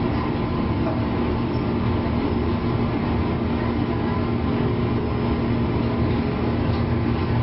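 Running noise inside a JNR 201-series electric train car, recorded directly above its armature chopper control unit: a steady rumble from the moving train, with a steady hum from the chopper equipment.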